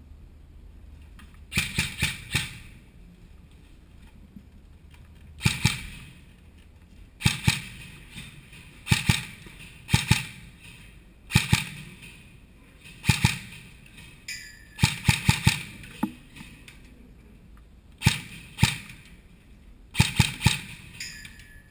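Airsoft guns firing in short bursts of two to four sharp shots, about a dozen bursts spaced a second or two apart.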